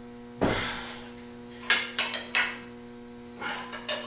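Metal clanks and clinks of a wrench working on a removed electric motor and its steel mounting feet: one sharp knock about half a second in, then a few lighter clinks twice more, over a steady hum.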